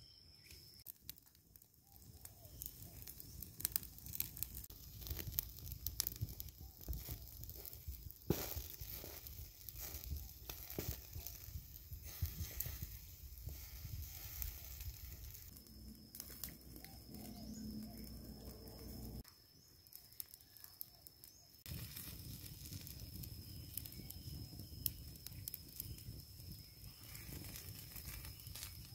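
Open wood fire crackling and popping under chicken roasting on bamboo spits, with scattered sharp clicks and rustles over a low rumble.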